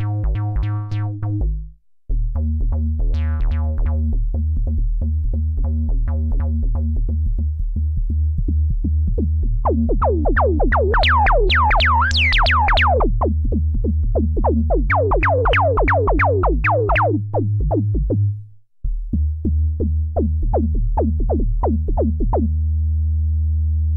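Bass line from a DIY breadboard analog synthesizer played from a keyboard over a drum machine beat. In the middle the filter opens into resonant sweeps that rise and fall. The sound briefly cuts out about two seconds in and again later, and it ends on a held low bass note.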